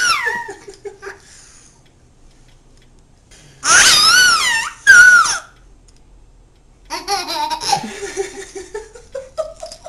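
Baby laughing in high-pitched, wavering peals: a loud long one a few seconds in and a short one right after it, then softer babbling that rises in pitch near the end.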